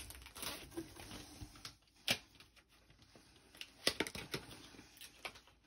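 Plastic packaging crinkling as a pack of craft dies is opened and handled, mostly in the first second and a half, followed by a few scattered sharp clicks and taps.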